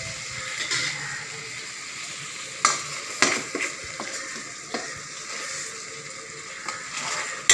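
Goat brain pieces sizzling in masala gravy in a stainless steel pan, with a spatula knocking and scraping against the pan as the pieces are gently turned. A handful of sharp knocks comes between about two and a half and five seconds in, and one more at the end.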